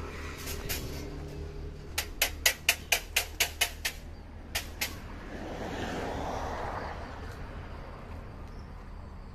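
A run of about eight sharp taps, roughly four a second, then two more, over a steady low hum. After them comes a noise that swells and fades over a couple of seconds.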